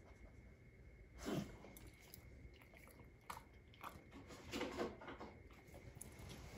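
A dog gnawing at its chew bone: a handful of faint, short chewing sounds at irregular intervals, about a second apart.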